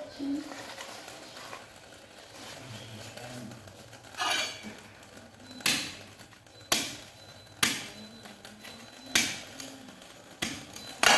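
A cleaver chopping through a corn cob, about seven sharp chops roughly a second apart, starting about four seconds in.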